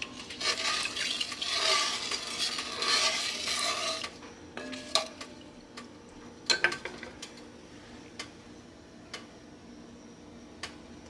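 Wooden spatula stirring a soy sauce, sugar and ginger marinade in an enamelled cast-iron pot, scraping and swishing against the pot for about four seconds. Then a few sharp clinks with brief ringing, and only faint ticks after.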